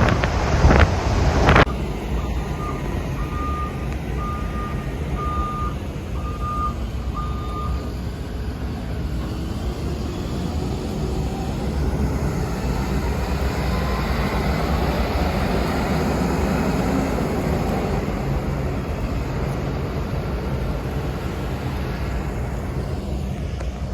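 A vehicle's backup alarm beeps five times, about once a second, over a steady low engine and outdoor rumble. A loud rush of noise, like wind on the microphone, fills the first second and a half.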